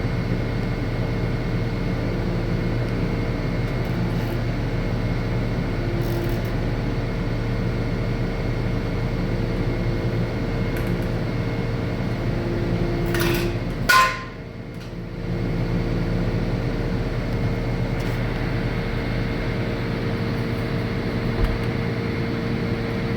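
Kubota SVL97 track loader's diesel engine running steadily, heard from the cab, while the loader picks up a tilt hitch. About fourteen seconds in there is a brief sharp burst with a short whine, then the engine sound dips for a couple of seconds before it steadies again.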